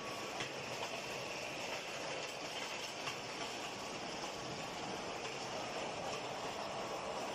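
Steady mechanical noise of a hot-forging steel-ball rolling mill running, with a few faint clicks.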